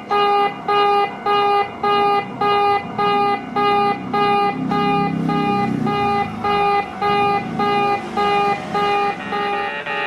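Japanese railroad crossing warning bell ringing its repeating 'kan-kan' tone, about two rings a second. A lower rumble swells and fades in the middle.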